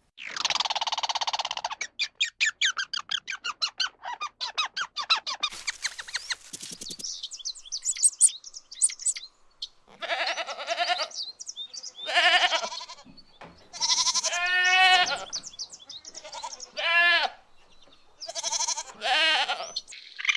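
A run of different animal calls: a rapid string of pulsed chattering that slows, then high thin squeaks, then several wavering, pitched cries a second or so long.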